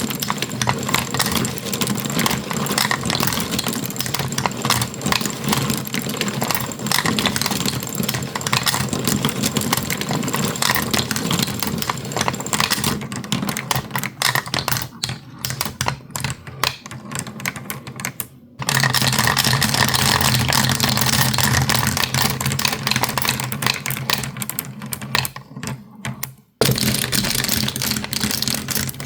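Marbles rolling and clattering down a toy marble run, a dense rapid clicking with a steady low hum underneath. The sound changes abruptly twice, about two-thirds of the way in and again near the end.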